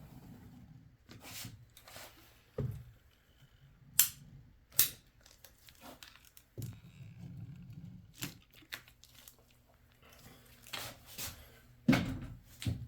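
Hand work with tools and sealant on board seams: a string of sharp clicks and knocks, the loudest about four and five seconds in and again near the end, with rustling and scraping between them.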